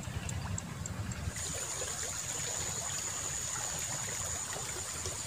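Water flowing and trickling along a small irrigation ditch in a steady wash. For the first second or so there is a low wind rumble on the microphone. After that a steady high-pitched whine runs over the water.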